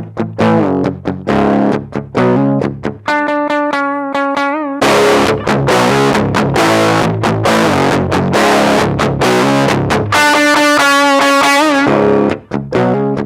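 Electric guitar played through a mini guitar amplifier with overdrive. It plays rhythmic picked chords, then a held note with vibrato about three seconds in, then dense strummed chords, then another held vibrato note near the end, then picked chords again.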